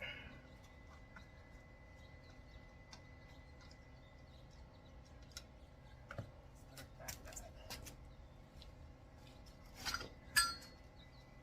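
Faint scattered clicks and taps of objects being handled and set down, with a short cluster and one sharper clink about ten seconds in.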